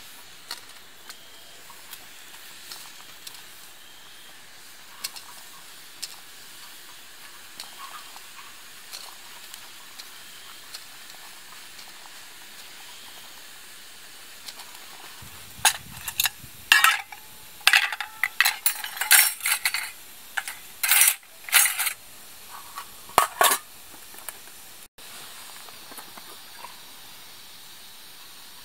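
Water boiling in a stainless steel frying pan over a campfire, a faint steady hiss with small pops. About halfway through comes a run of loud metallic clanks and scrapes of stainless steel cookware and utensils being handled, which stops a few seconds before the end.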